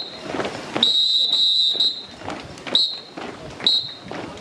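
Whistle blown in sharp, high blasts: a short one, a long one lasting about a second, then two more short ones.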